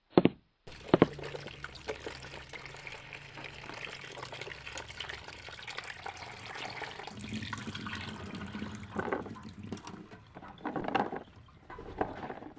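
Water running steadily, as from a tap, with a few louder moments near the end.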